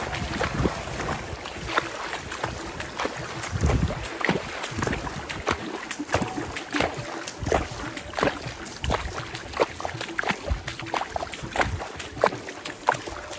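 Shallow seawater splashing and lapping over a sandy bottom, with many small irregular splashes and a few low thumps, the biggest about four seconds in.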